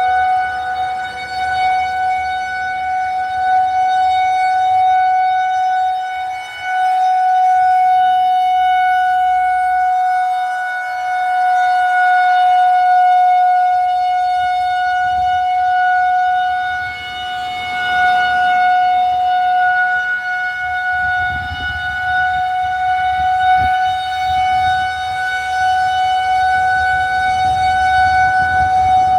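Federal Signal 2001-130 rotating electromechanical tornado siren sounding a steady tone for a test, held at one pitch throughout. Its loudness swells and fades slowly as the rotating head sweeps around.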